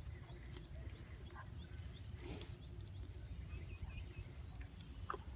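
Faint outdoor ambience: a steady low rumble with a few faint, short bird chirps in the second half.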